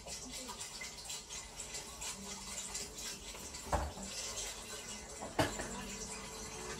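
Kitchen sounds from out of frame: a steady hiss, with two sharp clatters, one about halfway through and one near the end.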